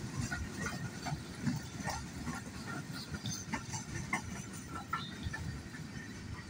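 Freight train wagons rolling past: a steady low rumble of steel wheels on rail, with scattered short clanks and squeaks.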